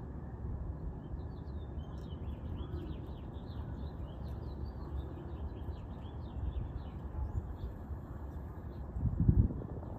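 Birds chirping in a quick run of many short high chirps over a steady low rumble, with a loud low thump about nine seconds in.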